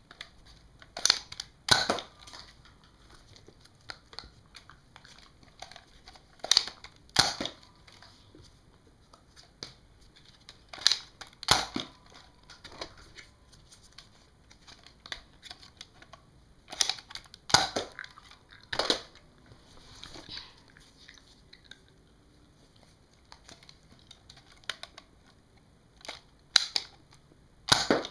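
Nerf Nite Finder dart blaster being test-fired over and over: sharp snaps and clicks in clusters of two or three, several seconds apart, with quieter handling and rustling in between as it is reloaded.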